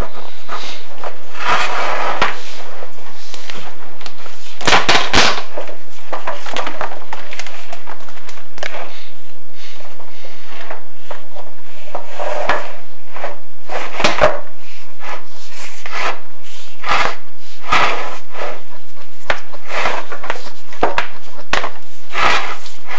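Chimney inspection camera scraping and knocking against the flue-tile walls as it moves down the flue, in irregular bursts of rubbing and sharp knocks, with a boxed-in, hollow quality from the inside of the flue.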